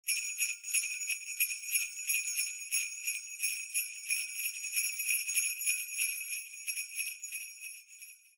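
Jingle bells shaken in a steady rhythm, a bright jangle with nothing low underneath, fading out near the end.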